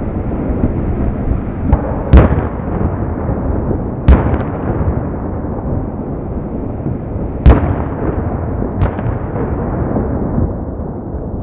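Aerial firework shells bursting overhead: three loud bangs about two, four and seven and a half seconds in, with two smaller bangs, over a constant low noise.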